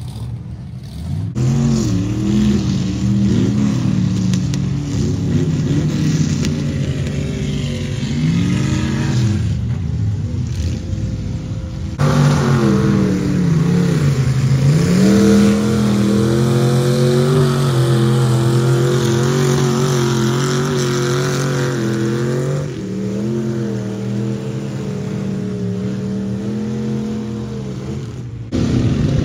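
Ford mud truck engine revving hard while bogging through mud, its pitch climbing and dropping again and again. The sound changes abruptly about twelve seconds in and again near the end.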